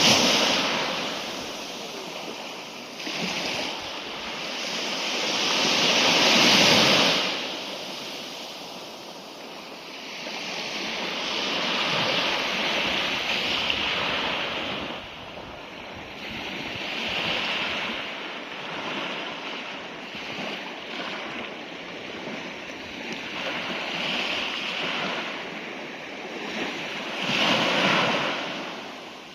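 Sea waves breaking and washing onto the shore. The surf swells and ebbs every few seconds and is loudest about six to seven seconds in.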